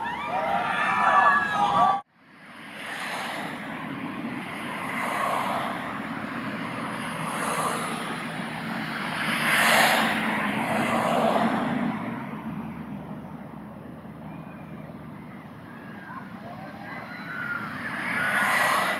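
Riders on the Fujiyama steel roller coaster screaming as the train crests a hill and drops, cut off abruptly about two seconds in. The coaster train then runs along the steel track in a rumbling rush that swells and fades, with riders' screams rising again near the end.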